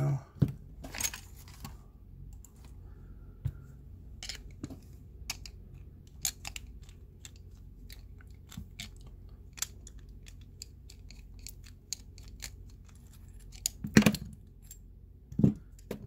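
Scattered small metal clicks and scrapes of a steel screwdriver working inside a brass Federal 500 padlock body while the lock cylinder is taken out, with two louder clacks near the end.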